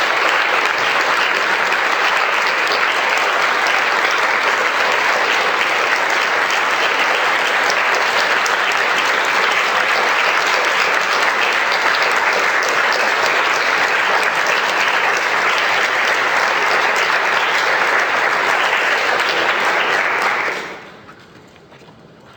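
Large crowd applauding: dense, steady clapping that starts at once and holds for about twenty seconds, then fades quickly to a faint tail near the end.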